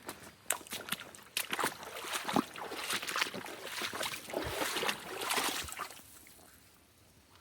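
Footsteps and rustling of someone moving on foot over rough ground: a run of irregular crunches and scuffs that dies down about six seconds in.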